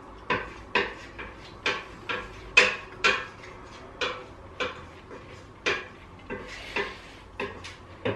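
Light taps and clinks of a silicone pastry brush against crockery while syrup is brushed onto a loaf cake, about two a second and irregularly spaced.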